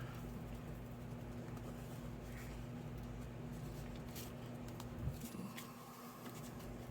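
Faint handling of cardstock pieces being fitted together, over a steady low electrical hum, with a soft tap about five seconds in.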